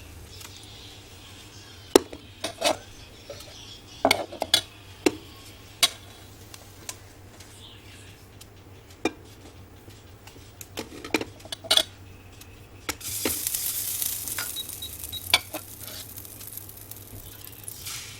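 Kitchen utensils knocking and clinking against bowls and pans while cooking. A steady hiss comes in at about 13 seconds and lasts about five seconds, with a few more knocks during it.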